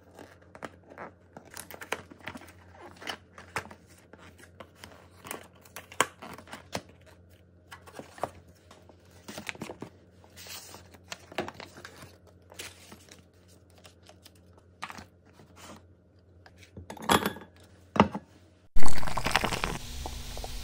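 Scattered soft taps, clicks and paper rustles of fried chicken and potato wedges in paper-lined boxes being handled and set out, then about nineteen seconds in a sudden loud noise that fades over about a second.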